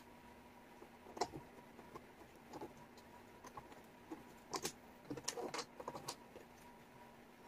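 Wooden jigsaw puzzle pieces clicking and tapping against each other and the table as they are picked up and fitted in. The clicks are faint and irregular, busiest in the second half, over a faint steady hum.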